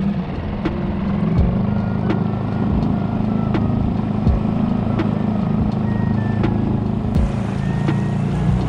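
Small Suzuki four-stroke outboard motor running steadily while the boat is under way; the hum builds over the first second or so.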